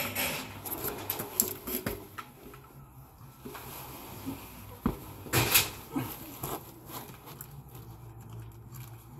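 Scattered clicks, taps and rustles of gloved hands handling parts and wiring inside a heat pump water heater's compartment, the loudest knocks about five and a half seconds in, over a steady low hum.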